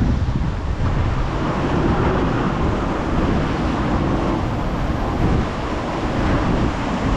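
Gale-force storm wind buffeting the microphone in a steady, heavy low rumble, with rough sea surf beneath it.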